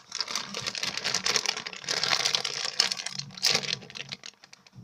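Plastic crinkling and crackling as squishy toys are handled, a dense run of fine crackles that eases off near the end.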